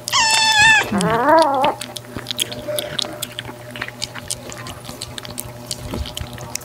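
Domestic cats meowing twice in quick succession, a short high meow and then a lower meow that rises and falls. Then scattered small clicks as the cats eat wet food from bowls.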